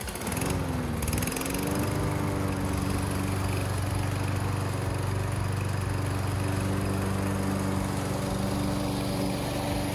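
Hayter Harrier 41 petrol rotary lawn mower engine running while being pushed across a lawn. Its speed wavers for the first second or two, then it settles into a steady run.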